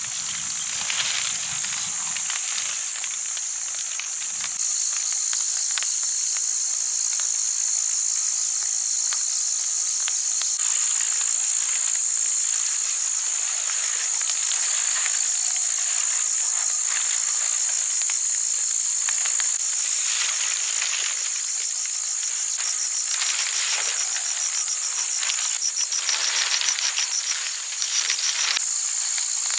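A chorus of insects: a steady high-pitched chirring that holds throughout, with a fast pulsing trill joining it about two-thirds of the way in. Scattered light ticks and taps sound underneath.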